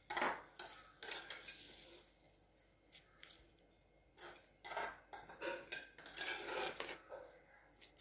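A spoon clinking and scraping against a metal pot in short irregular bursts, as a fried tempering of mustard seeds, onion, dried chillies and curry leaves is added to a vegetable curry and stirred in.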